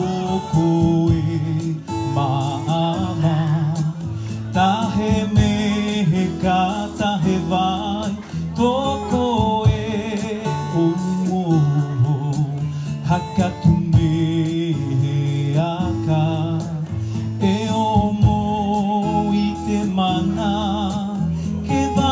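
Music: a song with a singing voice over instrumental accompaniment.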